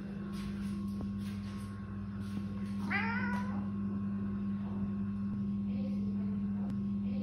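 A domestic cat meows once, briefly, about three seconds in, over a steady low hum.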